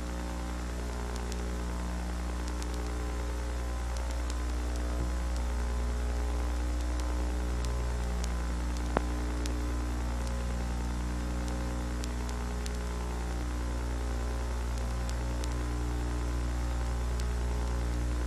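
Steady electrical mains hum with a light crackle of static, and one sharp click about nine seconds in. It is the hum and noise of a film transfer, not sound from the scene.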